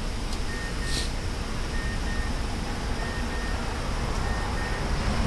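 Steady low outdoor rumble with a faint high beep that repeats on and off, and a single sharp click about a second in.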